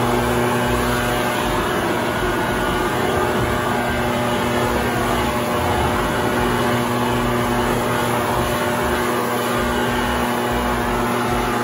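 Leaf blower running steadily at an even pitch, blowing acorns and leaves off the ground.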